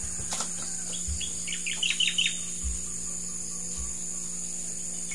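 A bird calling a quick run of short, falling chirps about two seconds in, over a steady high-pitched insect drone.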